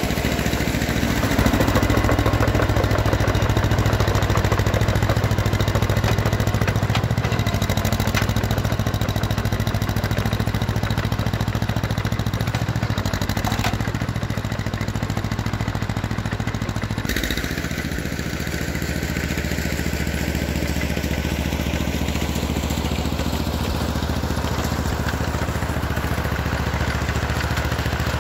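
John Deere 420 crawler's two-cylinder engine running steadily as the crawler drives through snow. About two-thirds of the way through, the sound changes abruptly and gets a little quieter.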